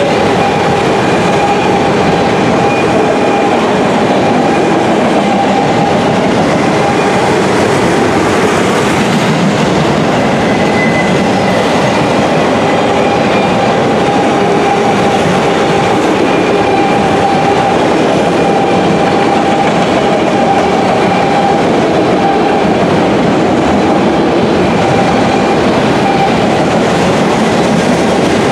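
Autorack freight cars rolling past: a loud, steady rumble and clatter of steel wheels on rail, with a faint high ringing tone that comes and goes.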